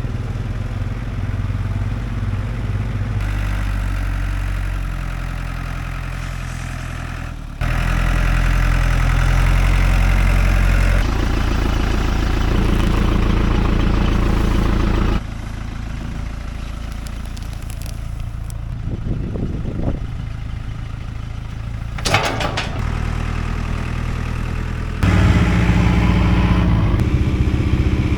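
Tractor engine running while a silage bale feeder is loaded and run on test, the engine note stepping abruptly louder and quieter several times. A brief knocking comes about 22 seconds in.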